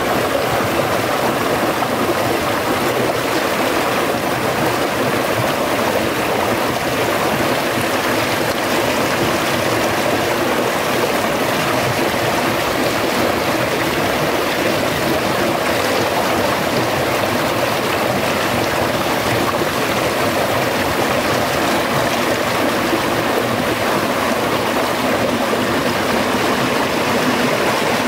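Shallow stream water rushing steadily over rocks.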